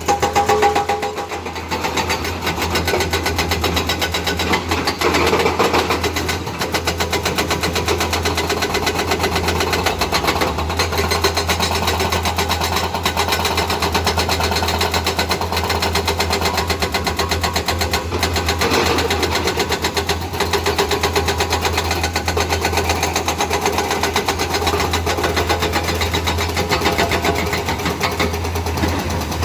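Komatsu excavator's hydraulic breaker hammering in a rapid, steady run of blows, over the excavator's diesel engine running under load.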